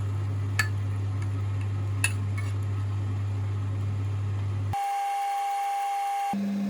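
Steady electrical hum with two light clicks, then it cuts suddenly to a single steady high tone for about a second and a half, followed by a different, higher steady hum.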